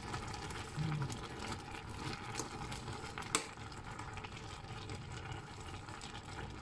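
A stainless-steel pot of sour curry simmering while a metal spoon stirs through the broth and vegetables, with one sharp clink of the spoon against the pot a little over three seconds in.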